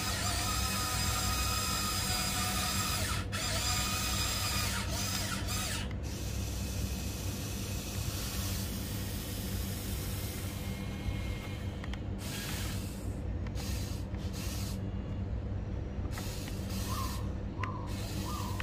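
Electric gear motors of a Huina 1594 RC excavator whining as it drives on its tracks and works its arm. The whine is loudest for the first six seconds, then drops to a softer hum.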